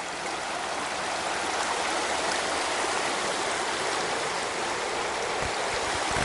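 Shallow mountain trout stream running over a rocky riffle: a steady rush of water, with a few low bumps near the end.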